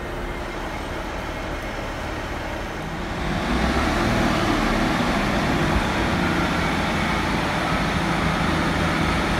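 Class 150 Sprinter diesel multiple unit's underfloor Cummins diesel engines running as the train moves slowly through the station. The hum grows louder about three and a half seconds in as the unit draws close.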